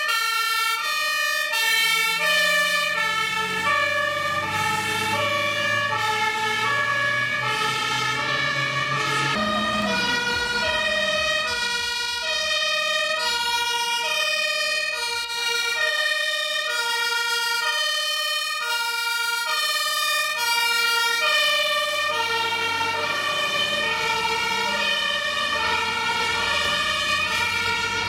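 German two-tone fire-engine sirens (Martinshorn) from several fire engines at once, each stepping between a high and a low note, out of step with one another. A low vehicle rumble runs under them at times.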